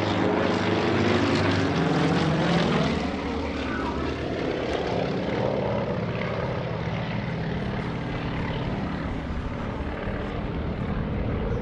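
Propeller-driven Yak-52TW aerobatic planes droning overhead on their M-14P radial engines. The engine note is loudest and shifts in pitch during the first three seconds as the formation pulls through the loop, then settles into a steadier drone.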